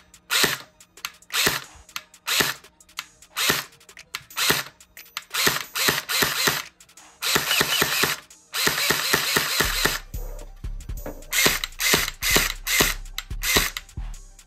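Umarex HK416 low-power electric airsoft gun's gearbox cycling with a mechanical clatter. First come a string of single semi-auto shots, about one or two a second. About halfway through come longer full-auto bursts.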